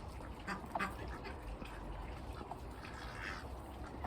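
Domestic ducks quacking and chattering softly, a few short scattered calls with small knocks and rustles between them.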